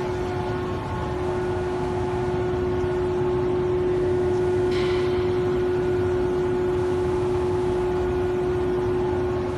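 An industrial cake production line running: a steady machine hum with one strong constant tone and fainter tones above it, and a short hiss about five seconds in.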